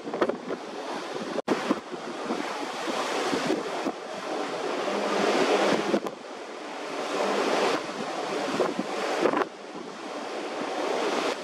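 Wind rushing over the microphone together with the wash of sea waves, a dense even roar. It breaks off abruptly and starts again about a second and a half, six and nine and a half seconds in, as separate shots are cut together.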